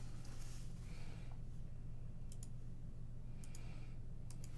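Quiet handling of trading cards: soft plastic rustles and a few small clicks as a card is slid into a clear penny sleeve, over a steady low hum.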